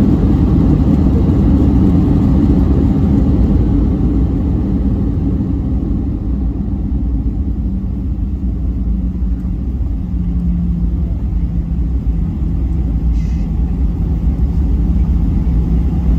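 Cabin noise inside a Boeing 737-900 rolling down the runway after landing: a loud, steady rumble of its CFM56-7B engines and the rolling airframe, easing a little midway, with a steady engine hum joining about ten seconds in.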